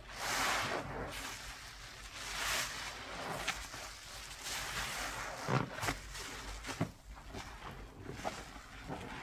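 A cleaning paste being worked by hand: irregular rubbing and squishing noises, with sharp clicks about five and a half and seven seconds in.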